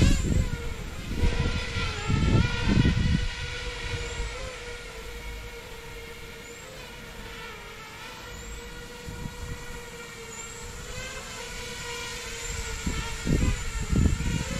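Custom-built FPV quadcopter hovering, its brushless motors and propellers giving a steady whine whose pitch wavers slightly as the throttle is held. Bursts of low rumble come near the start and near the end.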